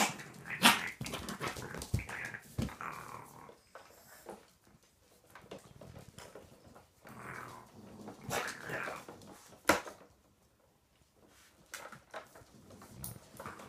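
Raccoons growling at each other in short harsh spells, one at the start and another in the middle, with a few sharp knocks between.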